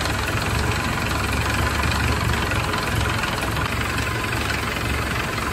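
Ford Model A's four-cylinder flathead engine idling steadily.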